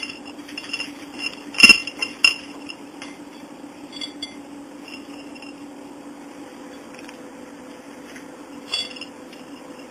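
Small bird toys clinking against a ceramic plate: a few sharp clinks in the first couple of seconds, then a quieter stretch and one more clink near the end, over a faint steady hum.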